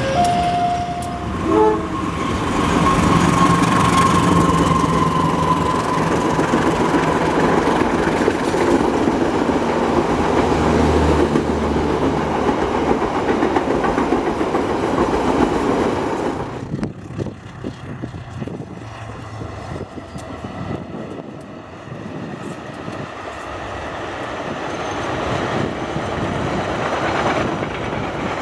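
Diesel-hauled trains passing close by: a long horn note sounds about two seconds in over the engine and the clatter of wheels on rail joints. About 16 seconds in the sound cuts to a quieter, more distant train that grows louder near the end.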